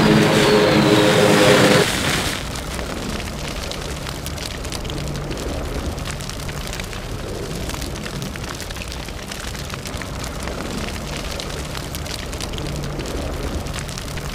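Music ends about two seconds in. A steady crackling of fire follows, many small snaps over a low rumble.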